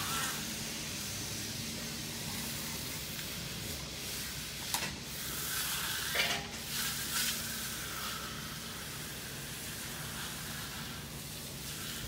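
Magnesium bull float sliding back and forth over wet, freshly placed concrete: a steady wet swishing hiss, with a couple of faint knocks midway.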